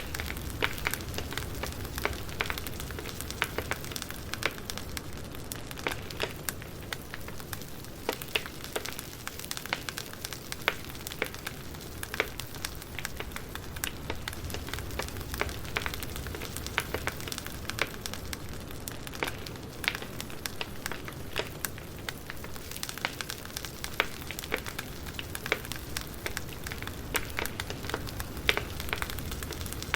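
Campfire burning, the wood crackling with frequent irregular sharp pops over a steady low rushing.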